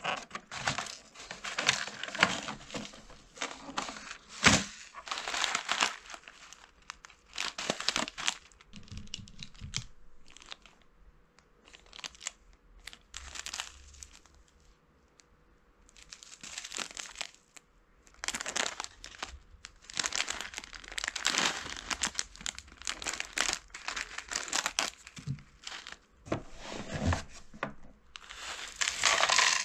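Paper lid of an instant yakisoba tray and small plastic seasoning packets crinkling and rustling as they are handled, in irregular bursts with short pauses. A sharp tap about four and a half seconds in.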